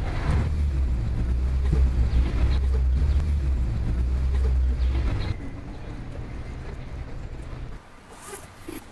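A low steady rumble for about the first five seconds, then quieter; near the end a cycling jersey's zipper is pulled, one short, quick zip.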